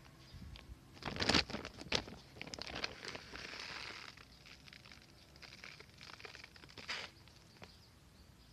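A plastic sack of granular organic fertilizer being handled, crinkling and rustling in loud bursts about a second in and again near seven seconds, with the granules shifting as a hand scoops into them.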